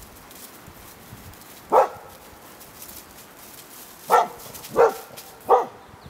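Nova Scotia Duck Tolling Retriever barking at the sheet-draped 'ghost' figures. There is one sharp bark about two seconds in, then three more in quick succession, a little over half a second apart, near the end.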